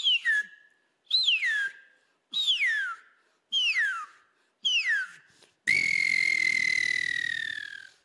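A man whistling an imitation of the smooth-billed ani (anu-preto) call through cupped hands. Five short, falling whistled calls come about a second apart, then one long whistle that sags slightly in pitch at the end.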